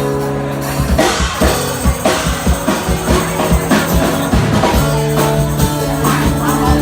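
Live rock band playing an instrumental intro: a drum kit keeps a steady beat under bass and guitar, with the full band coming in about a second in.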